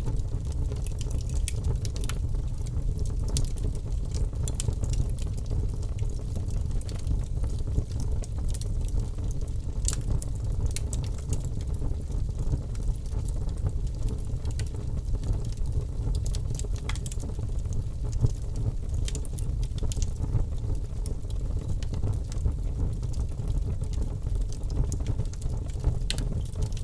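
Fire in a fireplace crackling: irregular sharp pops and snaps over a steady low rumble.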